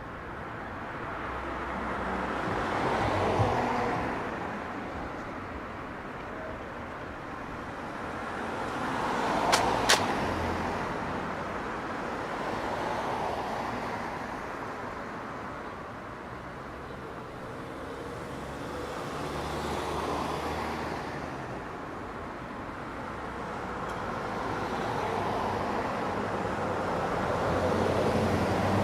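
Street traffic: cars pass one after another, five or six of them, each rising and fading over a few seconds over a steady background hum. Two sharp clicks come close together about ten seconds in.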